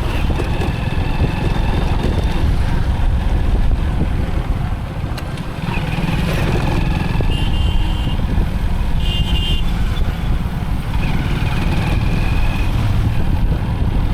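Motorcycle ride through town traffic: steady engine rumble with wind noise on the microphone. Several short horn blasts sound around the middle and again a little later.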